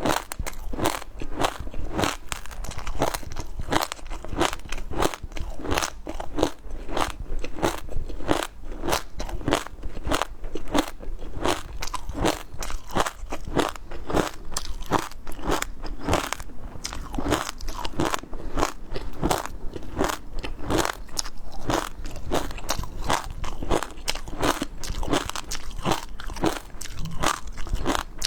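Close-miked eating of seafood: a steady run of crunching bites and wet chewing, about two to three crunches a second.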